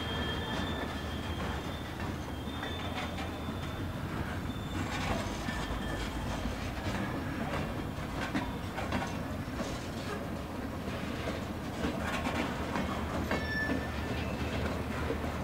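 Covered hopper freight cars rolling during yard switching: wheels clacking and knocking over rail joints and switches, with a few brief thin wheel-flange squeals over a steady low rumble.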